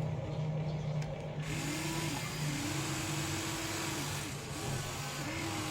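Electric motors of a remote-control toy excavator whirring, with the pitch rising and falling in short sweeps as the motors speed up and slow down over a steady low hum; a hissing noise comes in about a second and a half in.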